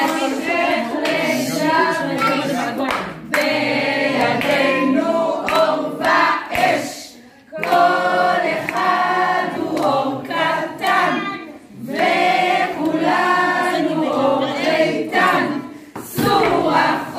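A group of voices, adults and children together, singing a Hanukkah song in unison. The singing comes in phrases of a few seconds with short breaks between them.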